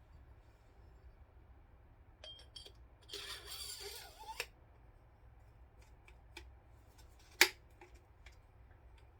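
Metal suppressor parts being handled and fitted together: scattered small clicks, a rattling scrape lasting about a second and a half about three seconds in, and one sharp click a little after seven seconds.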